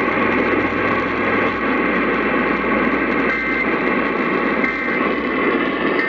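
Steady, loud radio static: a receiver's hiss with faint steady tones running through it.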